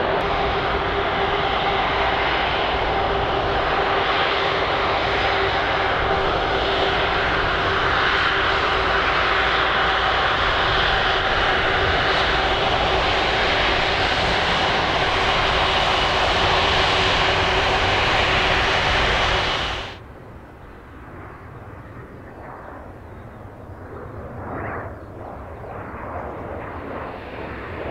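Airbus A330 Voyager's twin Rolls-Royce Trent turbofans running at taxi power close by: a loud, steady rush with a steady whine over it. About 20 seconds in it cuts off abruptly to the much fainter, distant rush of an F-15 jet on approach, growing louder near the end.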